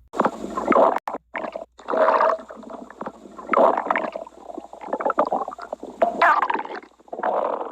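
Stomach growling and gurgling in irregular, bubbling bursts that rise and fall, broken by a few abrupt short gaps a second or so in.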